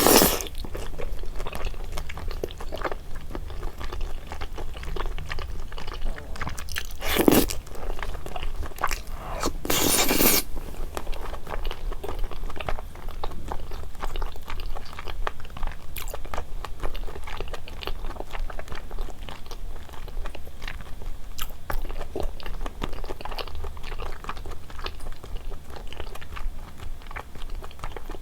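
Close-miked eating of rosé jjimdak (braised chicken) with thick Chinese glass noodles: continual chewing and biting with many small wet clicks, and two louder bursts about seven and ten seconds in.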